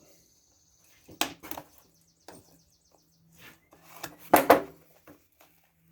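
Plastic housing of an old hair dryer being cut and snapped apart: a sharp crack about a second in, small clicks and a light rapid ticking, then a louder cluster of cracks a little past four seconds as the piece breaks free.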